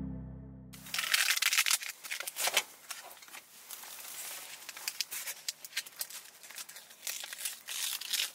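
Background music ends in the first second, then food packaging crinkles and rustles in irregular bursts as a takeaway pack of food is unwrapped.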